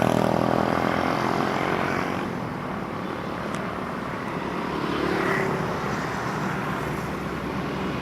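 Bus running past with a steady engine drone, after a multi-tone telolet horn dies away in the first second.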